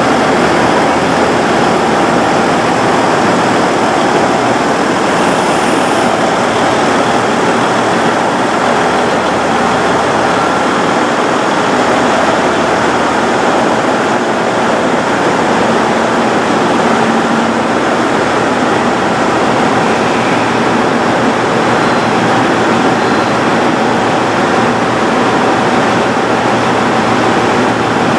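Diesel engines of a KiYa 95 measuring train running with a steady, continuous drone and a few steady hum tones, unchanging throughout.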